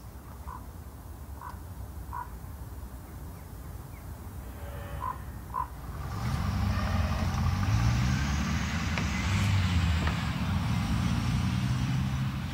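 A car driving by on the road: its engine grows louder about halfway in, holds, and eases off near the end, with tyre hiss. Before that, a low wind rumble on the microphone with a few short chirps.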